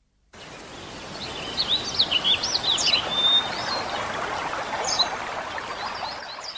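Small birds chirping and singing in quick, short calls over a steady rush of running water, starting abruptly after a brief silence.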